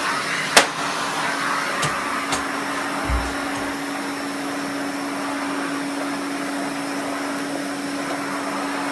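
1972 Hoover Constellation canister vacuum cleaner running with a steady hum. A few sharp clicks come in the first couple of seconds, and a dull knock about three seconds in.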